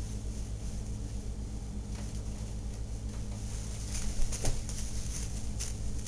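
Steady low room hum with a few faint rustles and clicks, one slightly louder about four seconds in.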